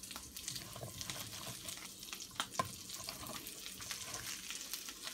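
Halved Brussels sprouts frying in hot butter and olive oil in a cast iron skillet, sizzling steadily with scattered small pops, just after being dropped into the pan. Two sharper clicks come close together about two and a half seconds in.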